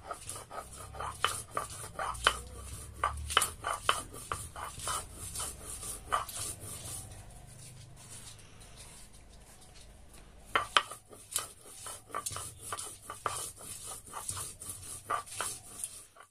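Stone roller of a shil-nora knocking and grinding on the flat grinding stone as whole green chillies are crushed into paste by hand: a run of sharp, irregular knocks, easing to a softer grinding for a few seconds midway before the knocks pick up again.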